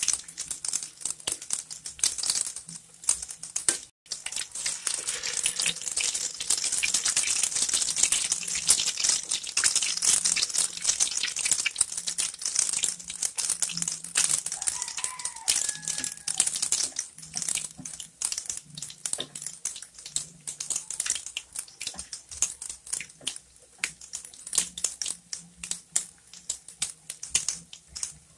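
Pork bola-bola patties deep-frying in hot oil in a wok: a steady sizzle with dense crackling pops, which cuts out for an instant about four seconds in.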